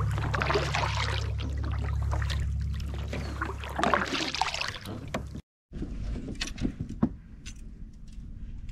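Kayak paddle strokes splashing and dripping in the water over a steady low rumble. After a cut about five seconds in, a few light clicks and knocks of fishing gear being handled on the kayak.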